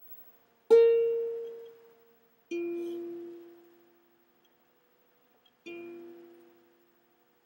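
Ukulele strings plucked one at a time: three single notes a couple of seconds apart, each ringing out and fading. The first is higher and loudest; the other two are lower and the same pitch, and the last is quietest.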